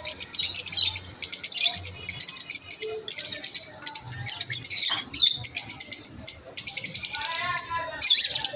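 Masked lovebirds chirping continuously in rapid, high-pitched runs broken by brief pauses, with a lower call near the end.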